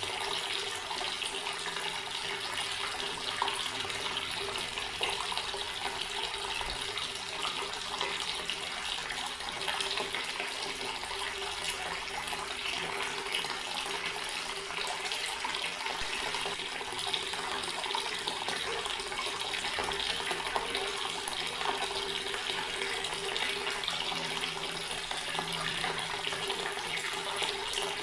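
Water running steadily from an outdoor tap, a continuous even splashing rush that neither starts nor stops.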